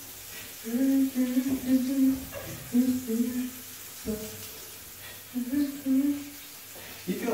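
A person humming a slow tune in short held phrases with pauses between them, over a faint steady low hum, with a few soft knocks in between.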